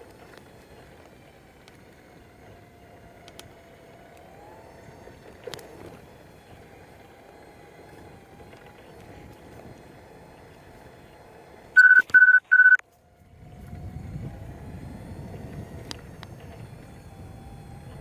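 Steady distant road-traffic hum. About two-thirds through come three short, loud, high electronic beeps in quick succession, followed by a lower rumbling noise.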